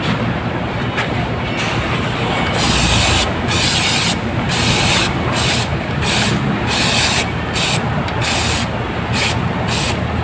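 Repeated short hissing spray bursts, about a dozen starting a couple of seconds in, as the clogged fuel pump strainer is being cleaned. A steady low rumble runs underneath.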